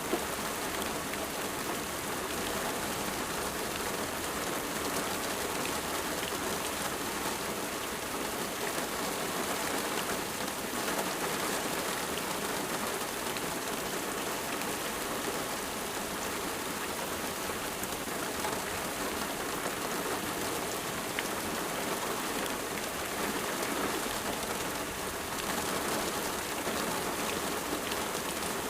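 Steady rain falling on a surface, an even hiss with many fine drop patters.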